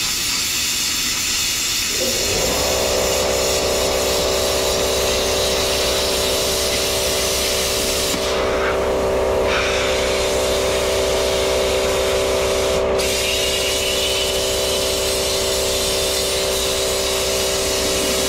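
Plasma cutter torch hissing steadily as it cuts sheet steel, breaking off for about a second and a half near the middle and once more briefly later. About two seconds in, an electric air compressor starts and runs with a steady hum beneath the hiss.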